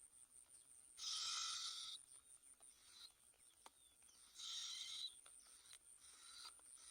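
Two short bursts of high, thin bird calls, one about a second in and one around four and a half seconds in, over a faint steady high buzz.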